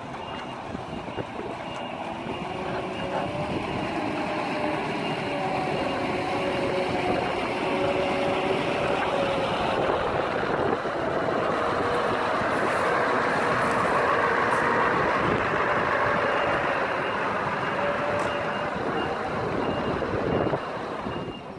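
Heavy truck with a low-loader trailer running and manoeuvring at low speed, its diesel engine and tyres growing louder toward the middle as it comes close and dropping away near the end. A reversing alarm beeps in repeated high pips at the start and again during the last few seconds.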